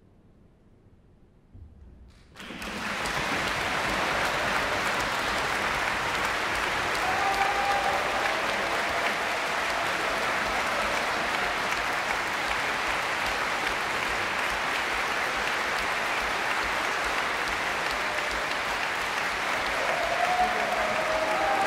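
Audience applause: after about two seconds of near silence, the clapping breaks out suddenly and continues steadily.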